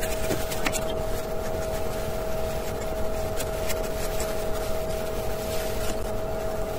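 A steady hum with an even noise bed runs throughout, and under it gloved hands press and smooth wet cement, with a few light scrapes.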